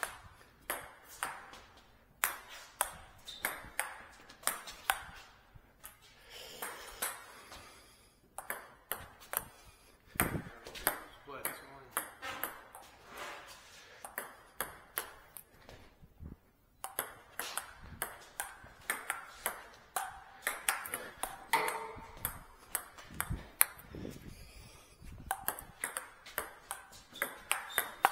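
Table tennis rallies: the ball ticking sharply off the paddles and the table in quick alternation, about two to three hits a second, with brief pauses between points.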